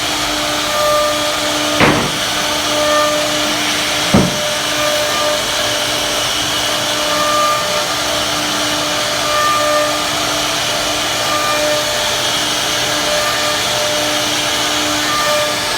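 CNC router spindle running, a steady whine over a loud hiss, the whine dropping out and coming back every second or two. Two sharp clicks about two and four seconds in.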